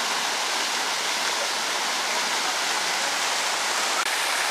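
Running water rushing steadily, an even splashing noise with no pauses; it drops out for an instant about four seconds in.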